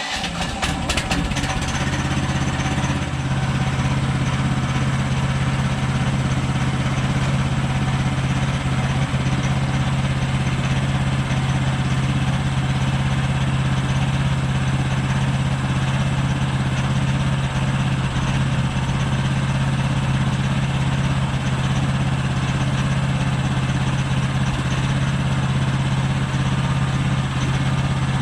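Portable bandsaw sawmill's gas engine running steadily at an even speed, settling in about a second after starting.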